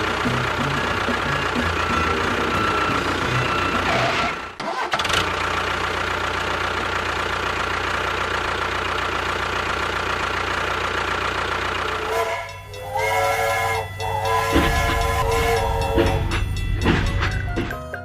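A DIY mini tractor or bulldozer model's engine sound runs steadily and loud, dropping out briefly about four and a half seconds in. About twelve seconds in it gives way to a tuneful jingle or music.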